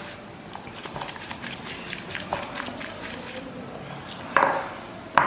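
Spatula stirring and scraping ghee and caster sugar together in a mixing bowl, in many small irregular strokes, with a louder scrape about four and a half seconds in and a sharp knock against the bowl near the end.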